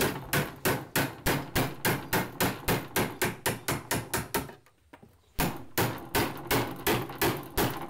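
Wood chisel being struck again and again, about three blows a second, as it cuts an entrance slot into a wooden beehive board. The blows break off briefly a little after four seconds in, then resume.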